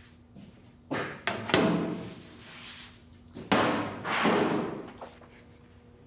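Three heavy thuds with echoing tails, about one, one and a half and three and a half seconds in; the middle one is the loudest. Each is followed by a swelling rush of noise that fades away.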